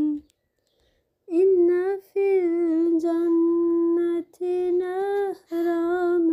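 A woman's voice sings a slow, unaccompanied lullaby in long held notes. It falls silent for about a second near the start, then resumes in phrases with short breaths between them.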